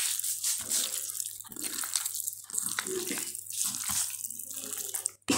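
Hands kneading and squishing raw beef pieces in a wet spice paste of ginger, garlic, onion and cumin: repeated wet squelching.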